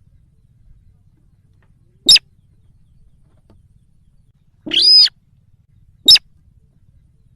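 Bird-lure recording of the sintar's call: three loud, sharp, high calls about two seconds apart, the middle one longer than the other two.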